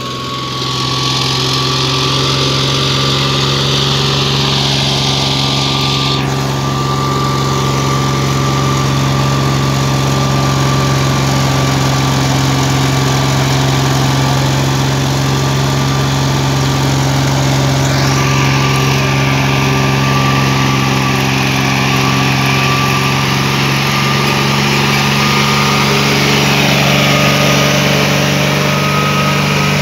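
John Deere 5039D tractor's three-cylinder diesel running steadily under load as it pulls a disc harrow through dry soil, with a thin whine above the engine that rises slowly in pitch.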